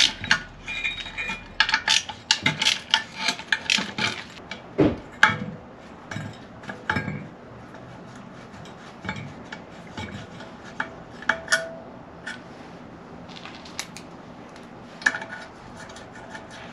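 Metal clicking and clinking of a wrench and small 10 mm nuts as the nuts holding the alternator in a Porsche 911 engine cooling fan are undone and set down on a concrete floor. The clicks come thick and fast for the first several seconds, then turn sparse.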